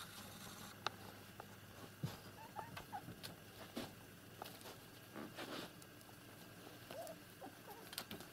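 Faint light pattering, scratching and rustling of a kitten's paws clambering over paper and small objects, with scattered small clicks and knocks.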